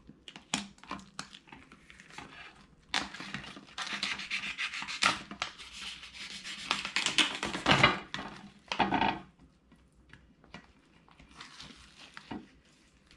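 A few light clicks and taps, then a long run of crinkling and rustling plastic film as the wrap over a tray of fish fillets is cut and peeled back; it stops abruptly about two-thirds of the way through, and quieter rustles follow.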